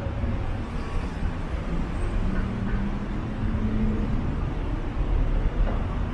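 Road traffic: a steady low rumble of vehicles, with one engine's hum rising slightly in pitch through the middle.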